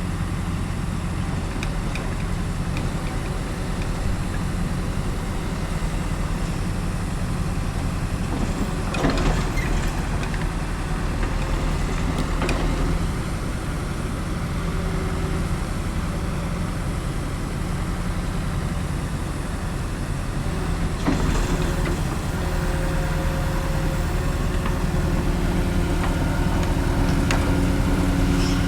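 Heavy machinery running steadily with a low engine-like hum, broken by a few brief sharp knocks.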